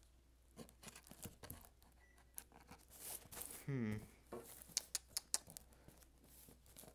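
Faint scattered clicks, scrapes and light crinkling of a tea box's packaging being picked and pulled at by hand, a hard-to-open package resisting. A short falling hum or grunt from the person a little past halfway.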